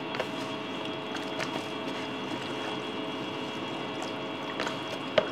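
Gloved hands squishing and turning boneless chicken pieces in a wet marinade in a plastic tub, with a few short clicks and a sharper knock near the end, over a steady background hum.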